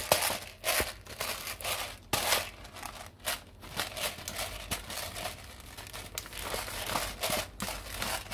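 Black peppercorns being ground in a hand-twisted pepper grinder: a crackly grating sound in a run of short twists.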